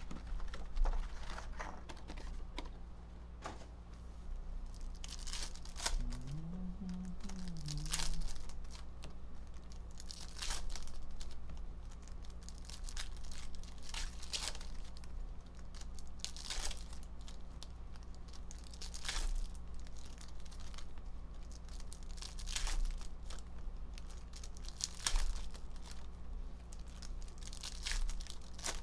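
Wrappers of Donruss Optic Fast Break basketball card packs being torn open and crinkled by hand, in scattered short rips and rustles, over a steady low hum.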